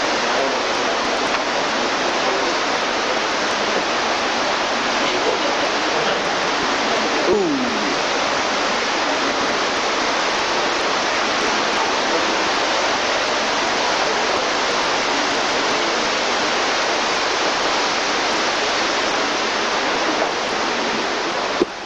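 Steady, unbroken rush of water flowing through a limestone cave stream.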